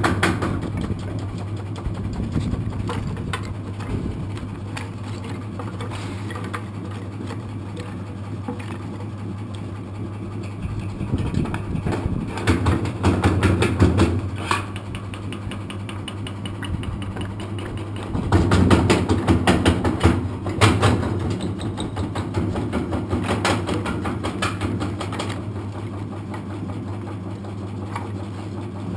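A Carroll Engineering kindling machine runs with a steady hum from its 1 hp motor and flywheel. Twice, around the middle, there are longer bursts of rapid knocking and cracking as blocks of wood are fed in and split into kindling.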